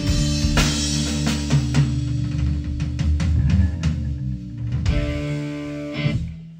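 Rock trio of guitar, bass and drums playing live: drum hits and cymbal crashes over a held chord, ending the song on a last hit near the end.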